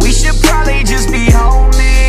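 Background music with a heavy bass and a beat.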